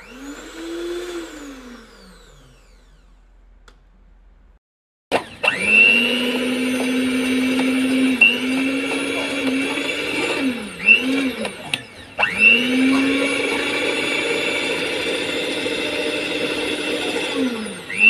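Russell Taylors electric stand mixer motor running with its beaters spinning in the steel bowl. It spins up and winds down briefly at the start. After a pause it runs with a steady whine that dips and picks up again a few times as the speed setting changes, stopping and restarting once.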